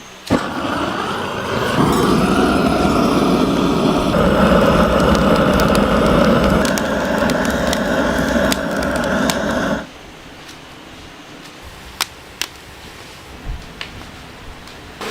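A machine's motor starts, rising in pitch over the first couple of seconds, runs steadily for about eight more seconds, and is cut off abruptly. A few sharp clicks follow in the quiet.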